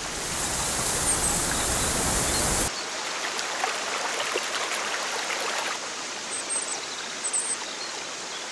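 Rushing water of a rocky mountain stream, a steady hiss. About two and a half seconds in, the deeper rumble drops away, and a few brief high chirps sound over the water.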